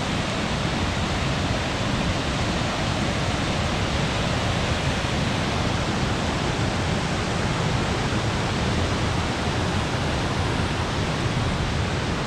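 Steady rushing of the Kuk-Karauk waterfall, a constant even roar of falling water.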